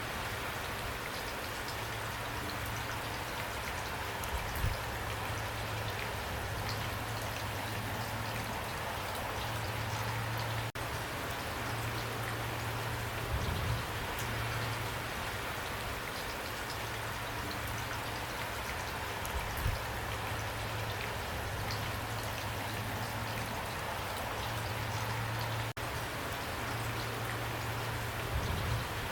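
Steady rainfall, a dense even patter of raindrops, with a few brief louder moments and two very short dropouts.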